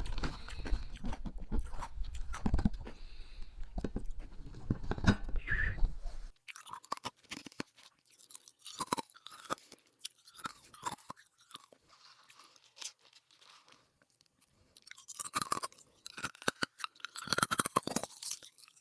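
Hard ice being crunched and chewed in the mouth, close to the microphone. The crunching is dense for about the first six seconds, then drops off suddenly to sparser, quieter crunches, and picks up again near the end.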